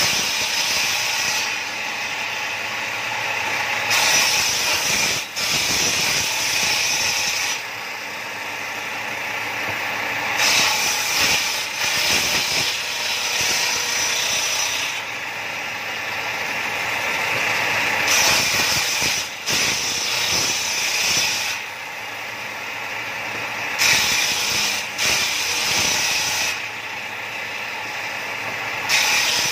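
Bench-mounted circular saw ripping boards lengthwise. The blade runs steadily and grows louder and hissier each time a board is fed through, about every four to six seconds.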